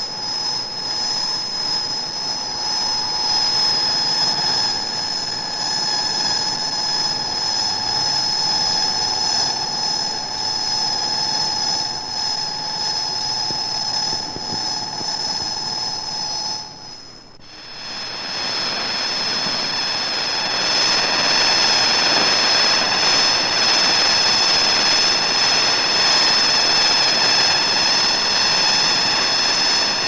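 Cicadas droning steadily with a dense high buzz. The drone drops away briefly about halfway through, then comes back louder.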